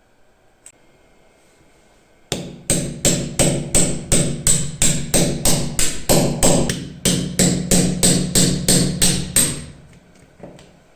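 Hammer striking metal in a steady run of about twenty quick blows, roughly three a second, each ringing briefly.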